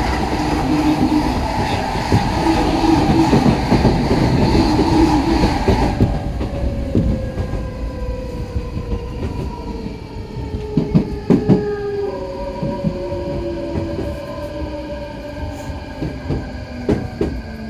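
Heard from inside an Odakyu 4000-series electric train car: another train rushes past close alongside for about the first six seconds. Then the car's own traction motors whine in several tones that fall steadily in pitch as the train slows, with a few sharp wheel clacks over rail joints around ten to twelve seconds in.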